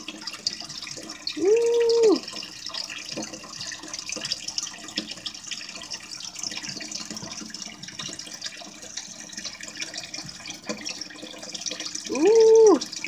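Steady trickle of running water throughout, with two short, steady-pitched hums from a person's voice: one about a second and a half in, the other near the end.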